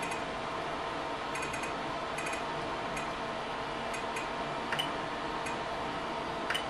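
Short, sharp ticks from the 3D printer's menu control knob being turned step by step, some in quick runs of two or three, with two louder clicks in the second half as a selection is pressed. A steady electrical fan hum runs underneath.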